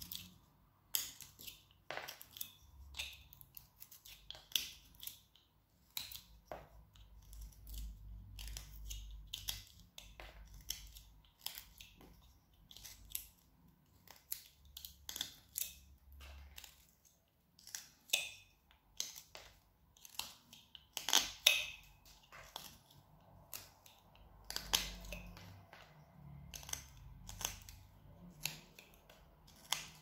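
Whittling knife slicing thin shavings off a wood branch: a run of short, crisp cuts at irregular intervals, roughly one or two a second.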